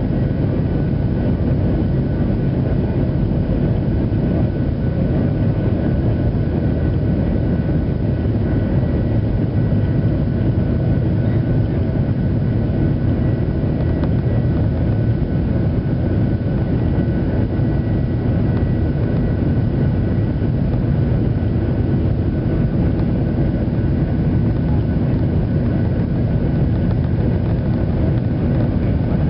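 Steady jet airliner cabin noise inside a Boeing 737-800 with its engines running: an even low rumble with a faint high whine held on top.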